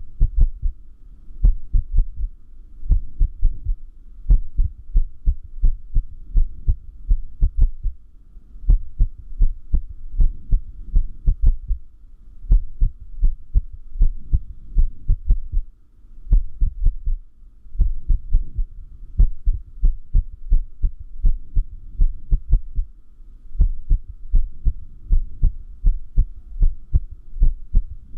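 Human heartbeat: a fast run of short, low thumps with an uneven rhythm that stops for about a second several times before picking up again. This is an irregular heartbeat, an arrhythmia.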